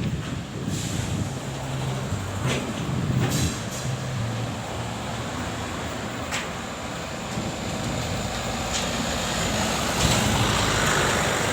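Heavy vehicle engines running as buses and traffic pass close by, with a steady low hum. A few short sharp clicks come about two and a half, three and six seconds in, and the road noise grows toward the end.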